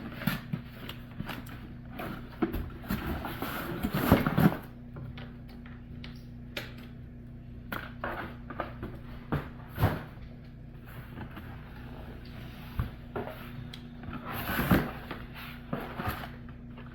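Items being handled and set down: irregular clicks, knocks and rustling, busiest a few seconds in, with single louder knocks about ten seconds in and near the end. A steady low hum runs underneath.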